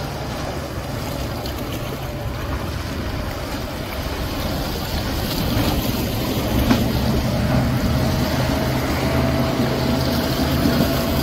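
Outboard engine of a center-console fishing boat running steadily at planing speed, with the rush of hull spray and wake. It grows louder about halfway through as the boat passes close.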